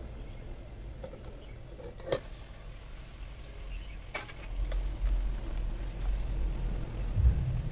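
Raw chicken pieces tipped from a bowl into an aluminium cooking pot, with a knock about two seconds in and a short metallic clink about four seconds in, then chopsticks stirring the pieces in the pot. A low rumble sets in about halfway through.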